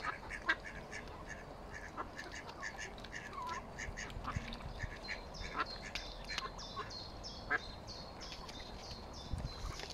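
Mallard ducklings peeping: many short, high-pitched calls in quick succession.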